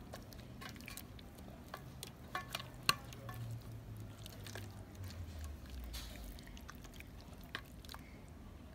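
Faint wet squishing and small clicks of hands working raw chicken pieces through a thin marinade in a stainless steel tray.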